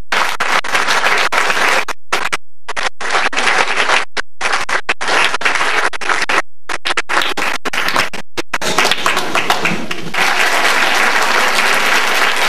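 Audience applauding, the recording broken again and again by brief dropouts where the sound cuts out completely: the camcorder tape's sound fault. From about ten seconds in the applause runs on unbroken.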